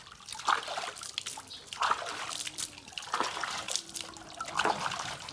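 Water dripping and trickling off a wet puppy's coat into a basin of water, with irregular small splashes about once a second.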